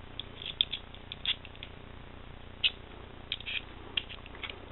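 Scattered small clicks and light taps of a folding knife and a small tool being handled while the knife's pivot screw is adjusted, irregular, with one sharper click about two and a half seconds in.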